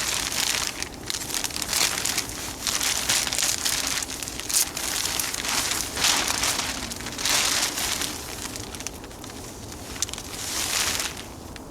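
Plastic garbage bag crinkling and rustling in irregular bursts as it is handled and spread out.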